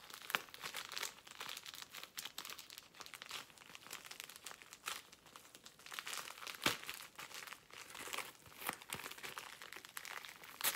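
A mailing envelope being crinkled and torn open by hand: an irregular run of rustles and crackles, with a sharper snap about two-thirds of the way through.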